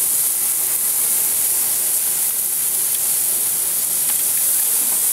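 Chopped vegetables sizzling in a perforated grill wok over a barbecue fire: a steady high hiss.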